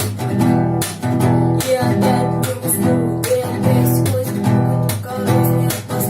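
Acoustic guitar strummed in a steady repeating pattern, several strokes a second, with chords ringing between the strokes.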